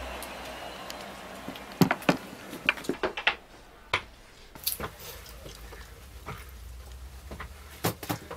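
Scattered light knocks and taps of a wooden picture frame being handled and set down on a counter, with footsteps, over a faint low hum. The knocks cluster about two to five seconds in, and there are two more near the end.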